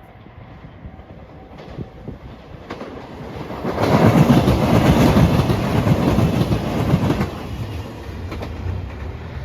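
A train passing close by at speed, its wheels clattering over the rail joints. It swells about three seconds in, is loudest for about three seconds, then fades.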